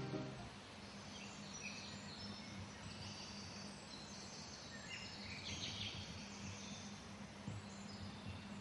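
Faint outdoor ambience: birds chirping and calling now and then over a steady low background noise.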